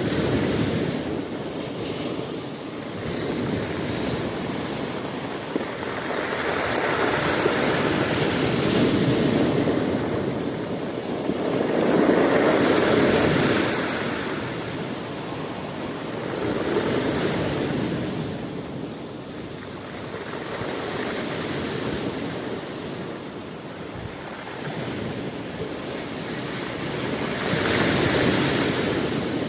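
Sea waves breaking and washing ashore, a continuous surf hiss that swells and falls back every few seconds, with the biggest surges about a third of the way in and near the end.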